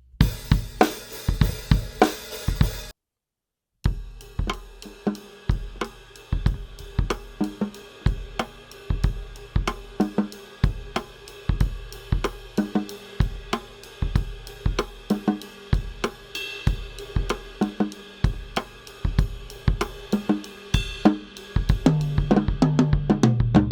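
Drum kit playing a steady groove of kick, snare and hi-hat with cymbals, picked up by a Yamaha EAD50's overhead microphone with its dry tone. The sound cuts out completely for about a second near the start, and the groove ends in a fill on the toms.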